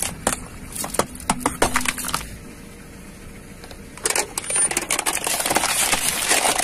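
Car tyre crushing aluminium drink cans: a run of sharp metallic cracks and pops in the first two seconds, then after a short lull a dense crackling as a row of cans on a bed of nails is flattened and pierced.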